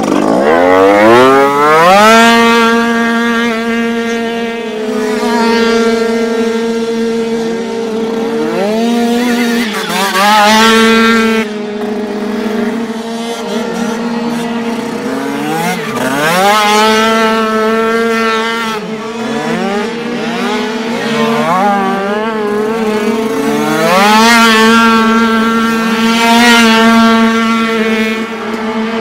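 49cc two-stroke dirt bike engines revving hard. Their high, buzzing pitch climbs steeply about four times, near the start and then every several seconds, over a steady engine note.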